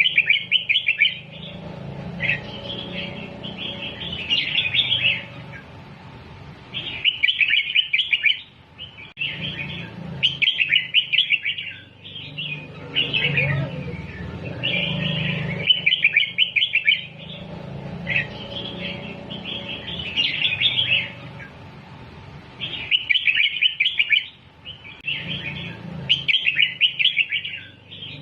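Red-whiskered bulbul singing: short phrases of quick notes, one after another with brief pauses between, over a low steady hum.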